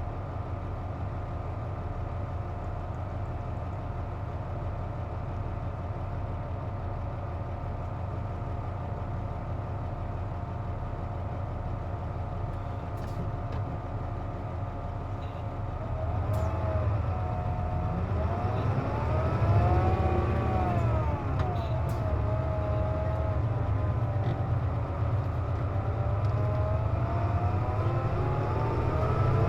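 Interior sound of a Hino KC-JP250NTN diesel city bus, heard from the cabin: it idles steadily with a constant whine of several tones, then from about halfway through the engine revs up and the pitch sweeps up and falls back as it accelerates through a gear change, rising again near the end. The steady whine is the abnormal noise that the uploader blames on the air conditioning being on.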